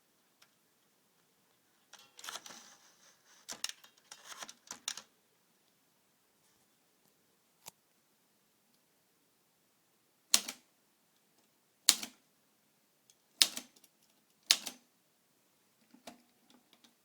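Olivetti Lettera 32 manual typewriter being worked: a flurry of clicks and rattling a couple of seconds in, then four single sharp key strikes, each about a second and a half apart, with a few faint clicks near the end.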